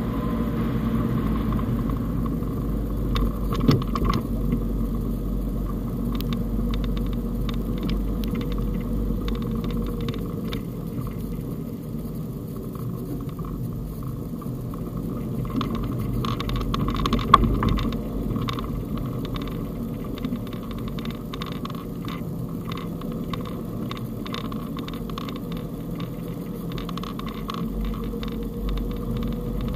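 Fiat Panda Cross driving on a snowy road, heard from inside the cabin: steady engine hum and tyre rumble, with scattered clicks and two louder knocks, about 4 and 17 seconds in.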